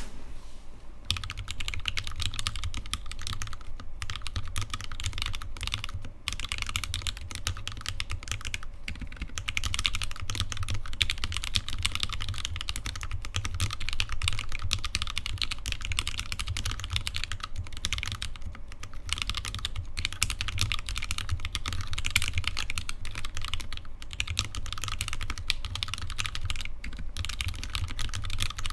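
Fast continuous typing on an Alice-layout custom mechanical keyboard with lubed Gateron Yellow linear switches, PBT keycaps and a sandwich acrylic case: a dense run of keystrokes with a few short pauses.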